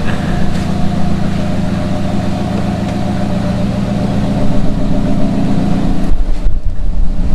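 Toyota Avanza running with its air conditioning on: a steady engine and AC hum with no grinding, the newly replaced compressor running quietly. About six seconds in the hum gives way to a louder low rumble.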